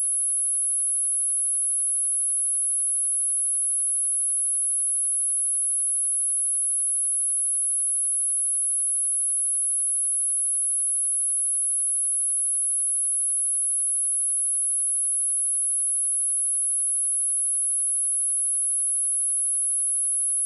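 Steady high-pitched 10656 Hz sine-wave test tone, one pure unchanging pitch at constant level, used for speaker testing and speaker cleaning.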